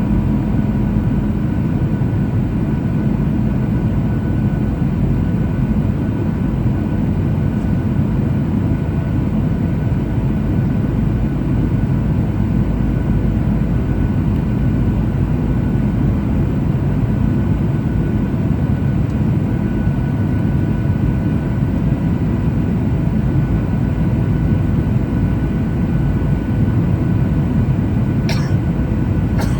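Boeing 737-800 cabin noise in flight: a steady low roar of its CFM56 engines and airflow, with faint steady tones running through it. A short sharp click comes near the end.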